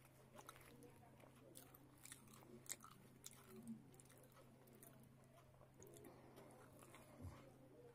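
Faint close-up eating sounds: fingers tearing luchi (puri) and scooping it through chana curry, and chewing, heard as scattered small wet clicks over a steady low hum, with a soft thump near the end.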